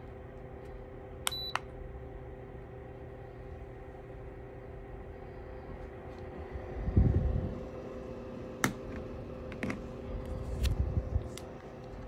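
Lasko ceramic tower space heater running, its fan giving a steady hum; about a second in the heater beeps twice in quick succession, answering button presses from its remote. Low rumbling bumps near the middle and end, with a few sharp clicks.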